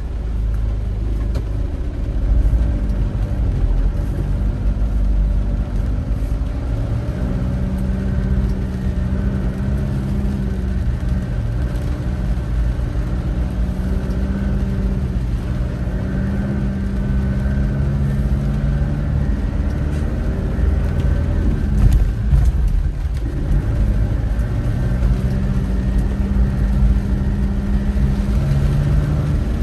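A car being driven: a steady low rumble of engine and road noise, with an engine hum that slowly shifts in pitch and breaks off briefly about three-quarters of the way through before picking up again.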